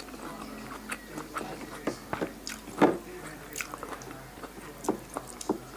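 Close-miked eating of a pork-sausage salad: chewing and wet mouth smacks with scattered sharp clicks, the loudest about three seconds in.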